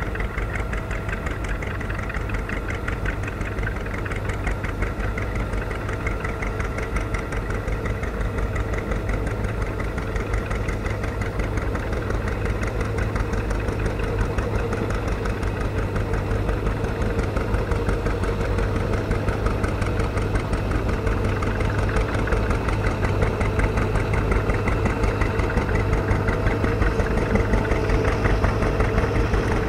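Antique farm tractor engines running steadily under load while pulling plows. In the later part a two-cylinder John Deere's exhaust beat dominates, growing louder toward the end.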